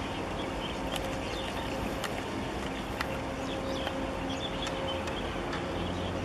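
Steady low drone of a passing ship's engines, with a constant hum and a rush of wind and water. Faint high chirps and a few sharp clicks sit above it.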